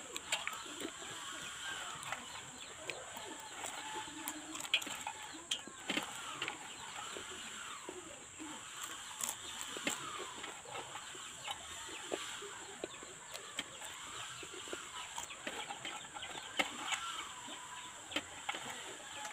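Chickens clucking repeatedly in the background, with scattered small clicks and taps of someone eating by hand from a plate.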